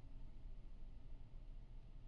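Quiet background room tone: a faint, steady low rumble with no distinct sound.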